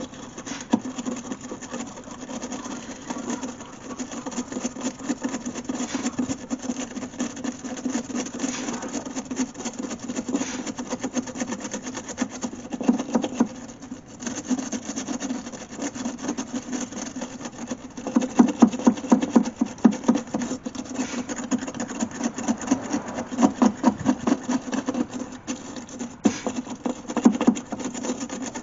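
Wire brush scrubbing the prongs of a headlight wiring connector in quick back-and-forth strokes, harder in spells in the second half. The prongs are being cleaned of corrosion to cure a bad connection that leaves the headlight dim.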